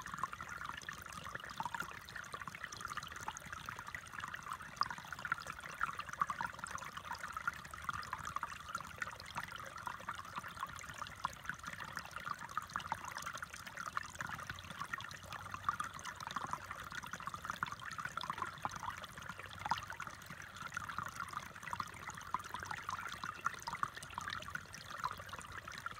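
A small, shallow stream trickling over stones: a steady, even babble of running water.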